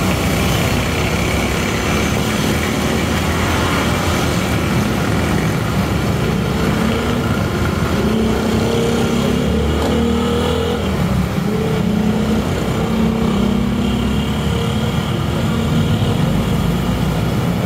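Street traffic: motorcycle and other road-vehicle engines running in a steady din, with an engine's low hum through the middle.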